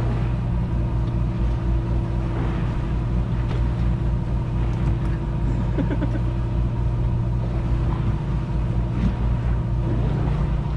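A fishing boat's engine running steadily: an even, low hum made of a few steady tones, with faint clicks now and then.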